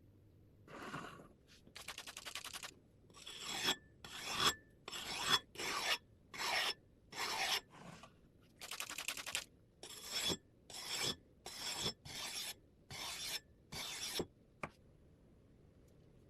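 A hand file rasping across the steel of an axe head in about seventeen separate strokes, each with a faint metallic ring. The strokes come roughly every two-thirds of a second, then stop with a short click.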